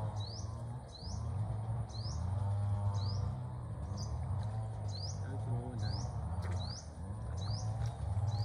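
A bird calling over and over, a short rising chirp about once a second, over a steady low hum.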